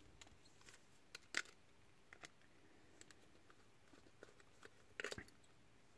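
Faint, sparse clicks and taps of a small screwdriver and its screws on the tester's circuit board, with a slightly louder cluster of clicks about five seconds in.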